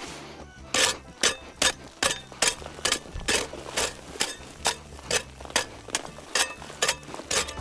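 Garden hoe chopping and scraping dry, gravelly red clay soil to level it, in a steady run of strokes about two a second, starting about a second in.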